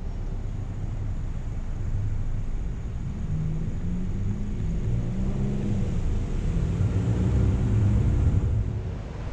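Low rumble of a car driving along a city street, engine and road noise together, with an engine note that rises about three seconds in and eases back toward the end.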